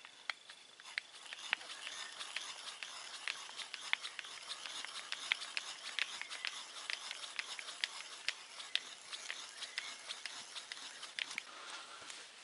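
Old hand brace turning a small drill bit into a piece of beech wood: a dense, irregular run of dry scratchy clicks and ticks as the bit cuts.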